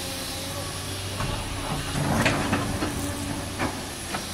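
Cat 329D excavator's diesel engine running steadily. From about a second in, stones clatter and knock irregularly in its hydraulic screening bucket as the load is worked, loudest just past the middle.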